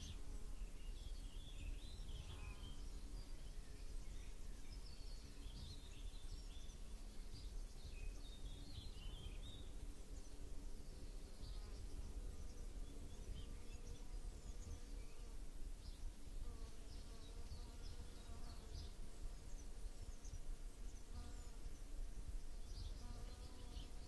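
Outdoor nature ambience: a steady, faint insect buzz, with short high chirps scattered throughout.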